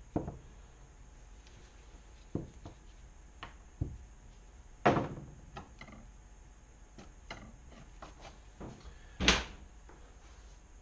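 Scattered knocks and clunks of engine parts and tools being handled and set down on a wooden workbench, the loudest about five and nine seconds in.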